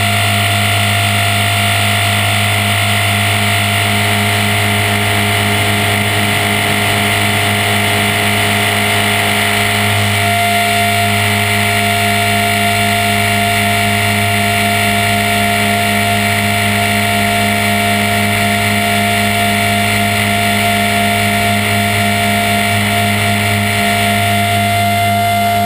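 HK450 electric RC helicopter in flight: a steady rotor hum with the high whine of its motor and gears, holding one speed. One whining tone grows stronger about ten seconds in.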